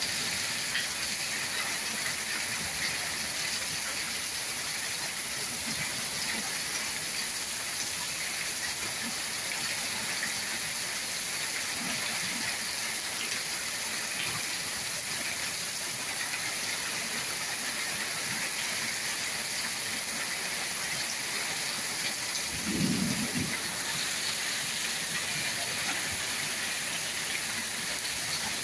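Steady rain falling, heard as an even hiss of drops on the ground, leaves and paving. About two-thirds of the way through comes a brief low thump, the loudest moment.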